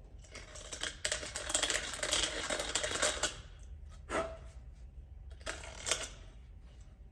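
Hand deburring tool scraping around the inside edge of a freshly grinder-cut stainless steel pipe: a run of rapid scratchy strokes for about two seconds, then a few single scrapes.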